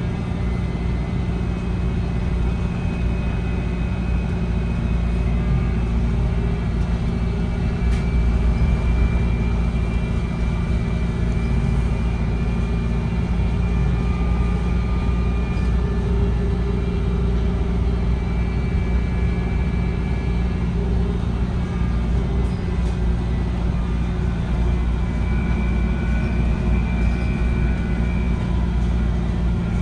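VDL Citea SLFA-180 hybrid bus running steadily with a low rumble, several steady humming tones, and a high whine that fades in and out a few times.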